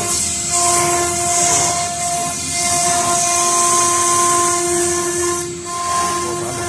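Stone CNC router spindle running while it engraves marble: a steady high whine with a hiss over it. The whine drops out briefly just after the start and again about five and a half seconds in.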